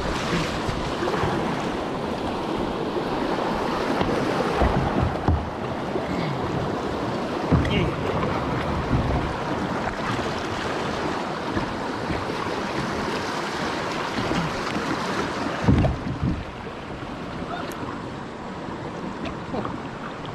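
Rushing river water around a kayak heading down the current, with a few low knocks. The water noise eases a little near the end.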